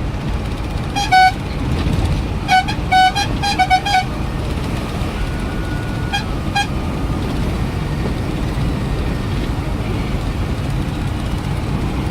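Vehicle horns honking in short toots: one about a second in, a quick cluster of five or six between two and four seconds, and two fainter ones about six seconds in, over a steady low rumble of traffic.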